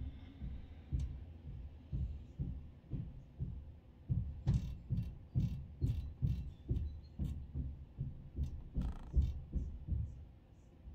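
Dull low thuds repeating steadily about twice a second, with a few sharp clicks over them in the middle.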